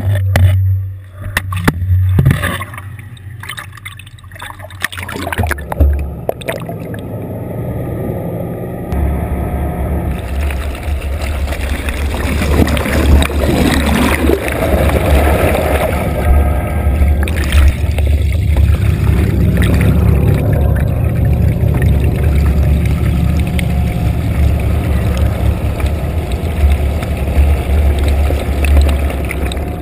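Water and bubbles rushing and gurgling as heard underwater, over a low steady rumble, with several knocks and bumps in the first few seconds. It goes with a deepwater fish-stocking release, a plume of water and bubbles carrying young cisco.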